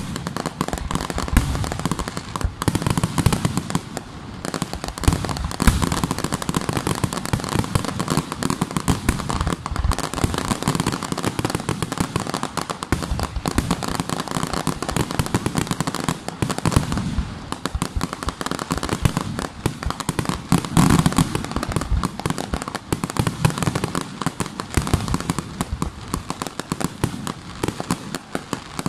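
Aerial fireworks display: a continuous barrage of shell bursts and crackling, with the bursts overlapping and a louder flurry about two-thirds of the way through.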